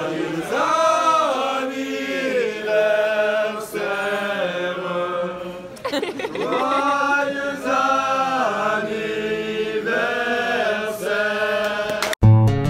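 A group of male waiters singing together to a table, several voices in one song. It stops suddenly near the end, cut off by strummed acoustic guitar music.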